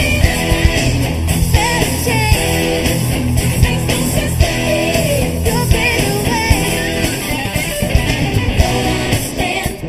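Live rock band music led by electric guitar over bass and drums, with singing.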